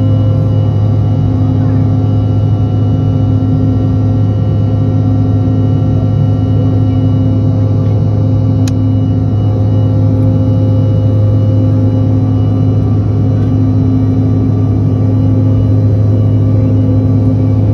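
Jet airliner engines heard from inside the passenger cabin in flight: a loud, steady drone with a strong low hum and several steady tones, and a single sharp click just under halfway through.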